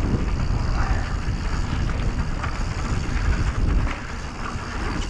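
Wind buffeting the microphone of a rider-mounted camera during a fast mountain bike descent, mixed with tyre and trail rumble; the rush eases about four seconds in.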